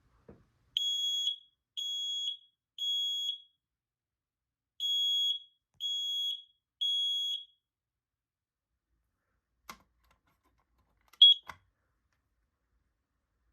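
Home smoke alarm sounding under test: two rounds of three loud, high, half-second beeps, the temporal-three evacuation pattern. Near the end come a click and a single short beep, followed by another click.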